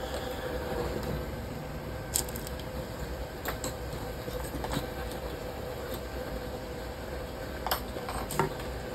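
A steady hum with a few faint steady tones in it, with several light clicks and taps scattered through.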